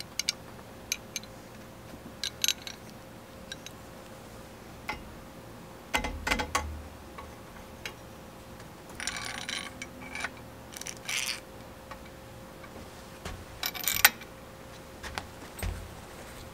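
Metal clicks and clinks of a headset press being fitted through a steel bicycle frame's head tube: its threaded rod, cups and guides knock and scrape together as they are handled and threaded up. There are short rattly scrapes around the middle and one sharp click near the end.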